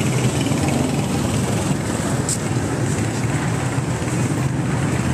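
Street traffic, a steady low rumble of motor vehicles with no single engine standing out.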